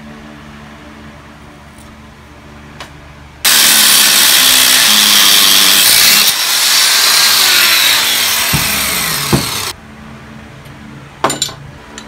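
Angle grinder cutting through a steel bar clamped in a bench vise. It starts abruptly about three and a half seconds in and stops suddenly about six seconds later. A few sharp clicks follow near the end.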